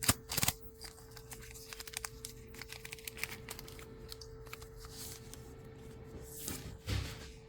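Foil trading-card booster packs being opened: wrappers crinkling and tearing, with a few sharp clicks at the start and a soft thump near the end, over a faint steady hum.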